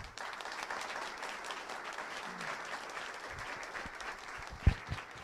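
Audience applauding, steady at first and thinning out toward the end, with a couple of low thumps near the end.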